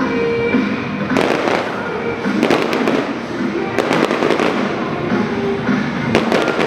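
A salvo of aerial firework shells bursting: about four big bangs a second or more apart, each followed by crackling.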